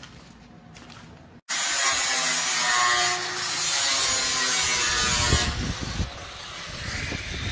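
A handheld power tool running against bare sheet aluminum, starting suddenly about a second and a half in and stopping about four seconds later, with a hissing edge over a pitch that shifts under load. A quieter low rumble follows.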